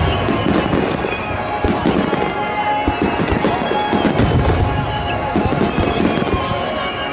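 Starmine fireworks barrage: shells bursting with sharp bangs about once or twice a second, with crackle, over music.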